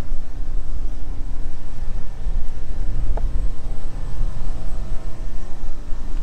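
Loud, uneven low rumble, with a brief faint squeak about three seconds in.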